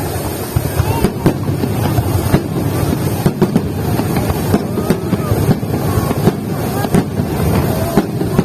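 Fireworks display: a continuous low rumble of bangs with many sharp cracks at irregular intervals, over the murmur of a crowd.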